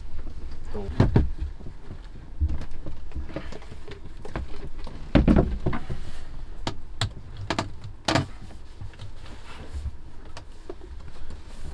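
Irregular clunks, clicks and knocks of tools and parts being handled in a cramped cabinet, over a low rumble. A few knocks stand out, about one second in, around five seconds in and around eight seconds in.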